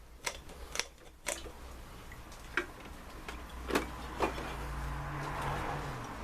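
Light metallic clicks and taps, about six of them spread irregularly, as the air compressor's cylinder head and reed-valve plate are handled. Near the end a short steady hiss with a low hum comes in.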